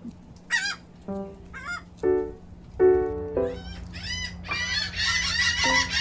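Laughing gulls and royal terns calling: separate calls in the first half, then many overlapping calls near the end.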